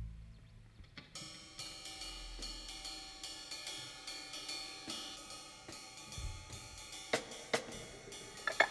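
Drum-kit cymbals and hi-hat tapped lightly in a quick, even pattern that rings on, opening an instrumental rock song, with a few low drum or bass thuds. The music gets much louder just before the end as the band comes in.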